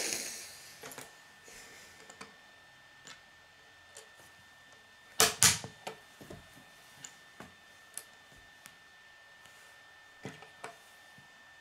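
Plastic K'nex pieces being handled and set down on a wooden tabletop: scattered light clicks and taps, a brief rustle at the start, and two louder knocks about five seconds in.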